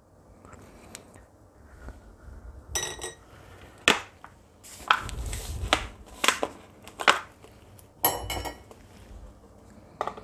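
A metal spoon clinking and tapping against small ceramic dishes and bowls while spices are measured out: about ten sharp clinks and knocks at irregular intervals, two of them ringing briefly.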